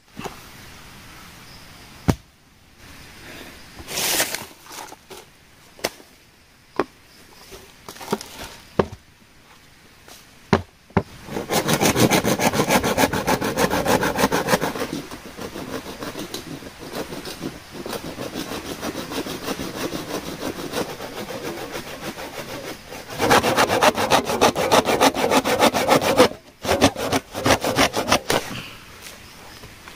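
Hand saw cutting through a bamboo pole with quick, steady back-and-forth strokes, loud for a few seconds about a third of the way in, quieter for a while, then loud again near the end. Before the sawing come scattered knocks and taps of the poles being handled.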